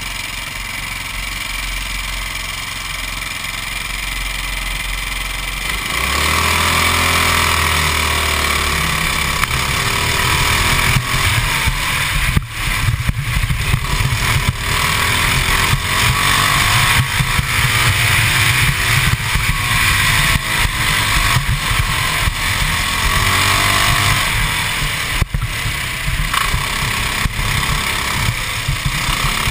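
Modified 196cc GX200-type single-cylinder kart engine driving a kart around a track, heard from on board. It is quieter for the first few seconds, then about six seconds in it gets louder and its pitch rises and falls again and again as the engine revs up on the straights and drops back for the corners.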